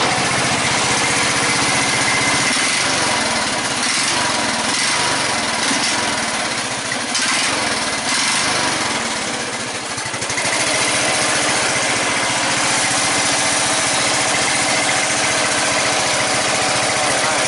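A 14.5 hp Briggs & Stratton lawn tractor engine running after repair. For several seconds in the middle its note wavers and a hiss rises, then it settles back to a steady run.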